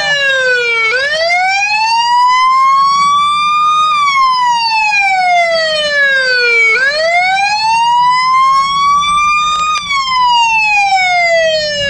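Electronic police siren in a slow wail, its pitch sweeping up and down twice over, each cycle about six seconds: a quick curving rise, then a slower even fall.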